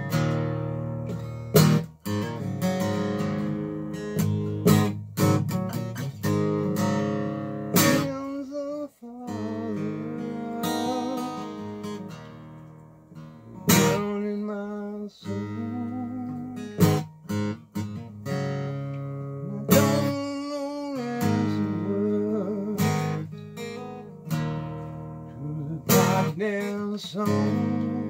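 Acoustic guitar strummed and picked in a loose, improvised riff: repeated chords with sharp attacks, their notes ringing on between strokes.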